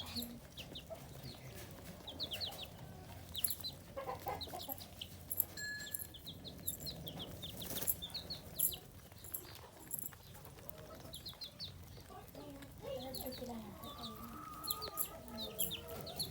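Chickens clucking while feeding, over frequent short high chirps in quick little groups. Lower drawn-out calls rise and fall near the end.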